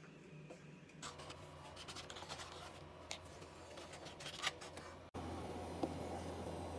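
Brown eggs being handled and lifted out of a paper-pulp egg tray: scraping and rubbing, with a few sharp clicks of shell on shell or on the tray. About two-thirds of the way in this gives way to a steady low hum and hiss, with a light tap as an egg is set into a pot of water.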